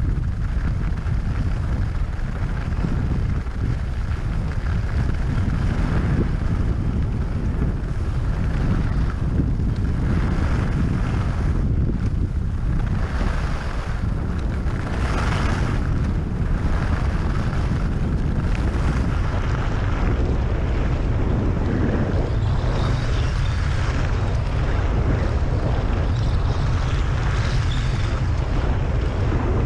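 Wind buffeting the GoPro Hero 5 Session's microphone as the skier runs fast down the piste, a steady loud rumble. Above it comes the hiss of skis sliding on groomed snow, louder about halfway through and again in the last third.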